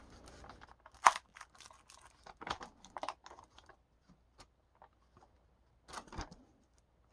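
Scattered crinkles and clicks from a foam RC plane elevator's plastic film covering being handled and flexed: a sharp click about a second in, then short crinkly bursts around halfway and again near the end.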